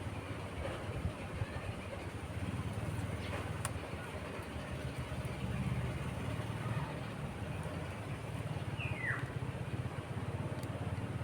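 Steady low background rumble, with a few faint clicks and a brief falling whistle near the end.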